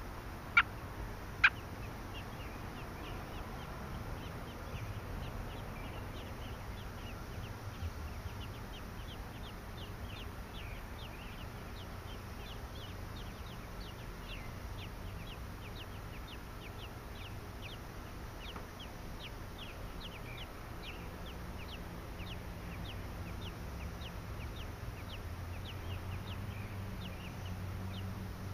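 Three-day-old American robin hatchlings begging in the nest while a parent feeds them: a steady run of thin, high, falling peeps, several a second. Two loud, sharp chirps sound near the start.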